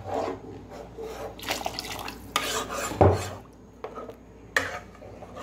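Spoon stirring thick chickpea curry in a pot, scraping and clinking against the pot, with one louder knock about three seconds in.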